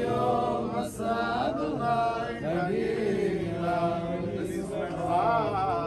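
Men's voices chanting Hebrew liturgy to a drawn-out, gliding melody, part of the synagogue Torah service that leads into the reading.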